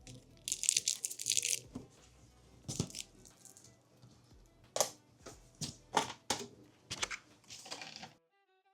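Handling noises: rustling and a series of sharp clicks and knocks, with a longer rustle about a second in and several clicks between about five and seven seconds in. The noises stop suddenly near the end, leaving faint violin music.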